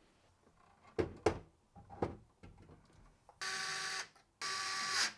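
A few light knocks of rack hardware being handled, then a small power driver running in two bursts of about a second each, driving the mounting screws into the rack's cage nuts.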